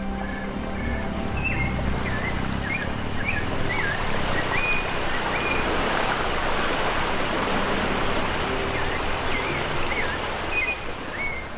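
Steady rush of water and wind from a small dinghy underway on open water, with birds whistling short calls that rise and fall, repeated throughout.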